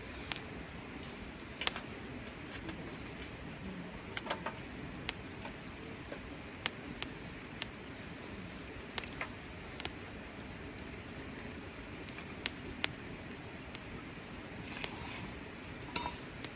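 Wood fire crackling, with sharp pops at irregular intervals over a low steady hiss.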